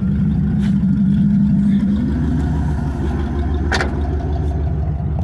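1991 Camaro RS's 305 small-block V8 running steadily and rough, with bad injectors and a blown head gasket. A single sharp click comes about three-quarters of the way through.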